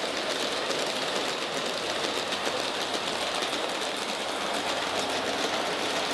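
LGB G-scale diesel locomotive running along the track, its electric gear motors whirring steadily and its wheels rolling on the rails.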